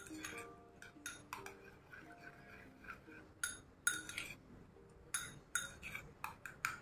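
Metal spoon beating eggs in a small ceramic bowl, clinking against the bowl in irregular taps.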